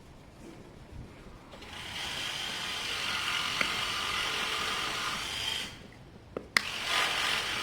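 A polishing pad worked over scooter bodywork with Turtle Wax Scratch Repair & Renew, in two spells of a few seconds each, with a couple of sharp clicks in the pause between.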